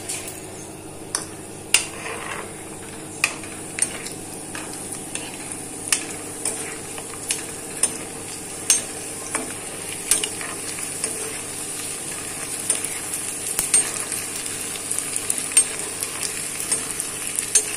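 Sun-dried aval vadagam (flattened-rice fritters) deep-frying in hot oil in a nonstick kadai, with a steady sizzle. A ladle stirs them, and scattered sharp clicks are heard throughout.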